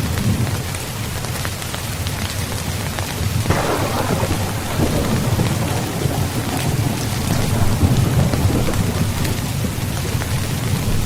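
Steady heavy rain with low rolling thunder rumbling underneath. About three and a half seconds in, a sharper thunderclap breaks in and then fades over several seconds.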